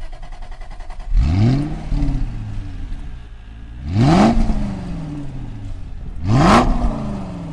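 Car engine idling and revved three times, each rev climbing quickly and then dropping back slowly to idle.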